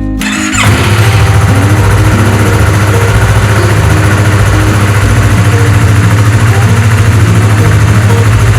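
Yamaha MT-03's 321 cc parallel-twin engine cranking and catching about half a second in, then running at a steady, evenly pulsing idle.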